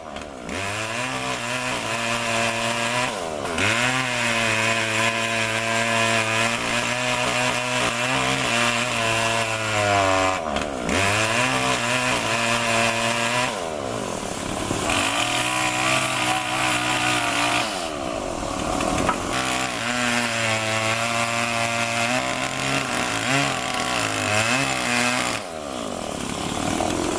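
Two-stroke chainsaw cutting into wood for carving. The engine runs at high revs through the cuts, and about five times its pitch drops and climbs back as the throttle eases off and opens again.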